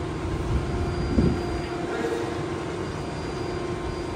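Steady low rumble and hum of machinery in a factory hall, with a faint knock about a second in.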